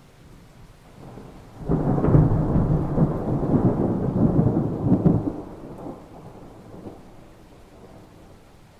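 Thunder: a sudden clap about two seconds in that rolls on for about three seconds, then dies away to a low rumble.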